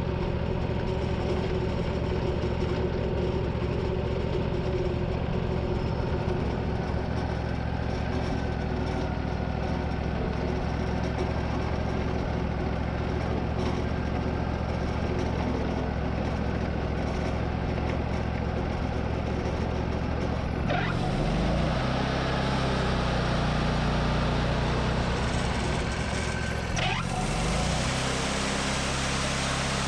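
Sawmill engine running steadily; about two-thirds of the way through its note shifts and a hissing rush of sawing joins it, with a brief dip a few seconds later.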